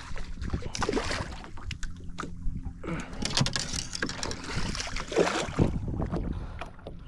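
Water swishing and splashing at a small boat as it is pushed along by hand, in a few irregular surges, with wind on the microphone.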